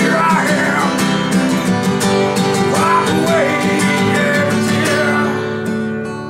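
Steel-string acoustic guitar strummed in an acoustic Delta blues style, with a man singing over it. The singing stops about five and a half seconds in, and the guitar plays on more softly.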